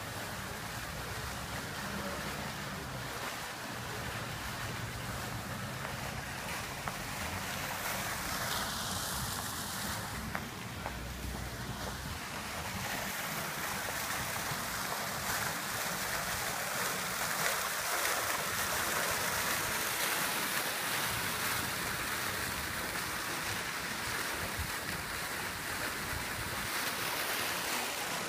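Fountain water splashing: a single vertical jet falling back into its basin, a steady rushing hiss that grows louder about halfway through.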